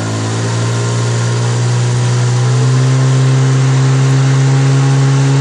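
HDX T9.8 BMS 9.8 hp outboard motor accelerating under throttle: its pitch and loudness rise over about the first three seconds, then hold steady. The boat is getting up toward planing.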